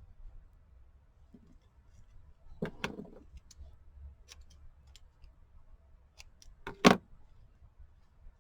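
Scattered light clicks and taps of hand craft work with paper and small tools on a tabletop, with a louder knock about seven seconds in.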